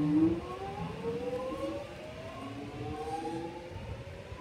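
Alstom X'Trapolis 100 electric train's traction motors whining as it pulls away, several tones rising slowly and steadily in pitch as it gathers speed. The whine starts climbing a moment in and fades as the train draws away.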